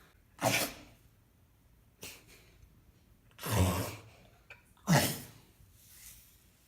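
Grey seal coughing and spluttering in a series of short, sudden bursts, the two loudest about a second apart near the middle, then a faint one near the end. It is the cough of a lungworm infection, which the carers hope is the seal bringing up the parasite after worming.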